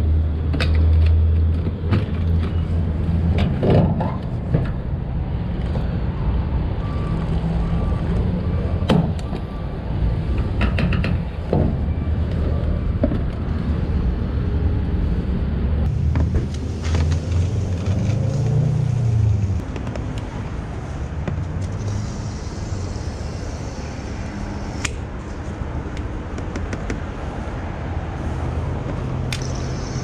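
Steady low rumble of vehicle engines, with scattered clunks and clicks from plastic jerry cans and a fuel nozzle being handled.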